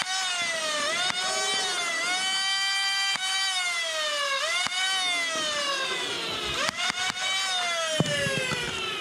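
Flywheel foam-dart blaster's motors whining: each time they spin up with a quick rising pitch and then slowly wind down, several times over. A few sharp clicks come between the sweeps.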